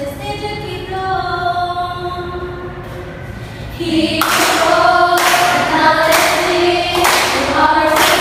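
A group of mostly female voices singing a jingle together: "John Locke, an empiricist educator… he proposed that knowledge is through our senses." About four seconds in it gets louder, and sharp beats join in about once a second.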